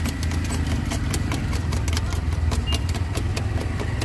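Quick, uneven knocks of a knife chopping on a board, over a steady low engine rumble.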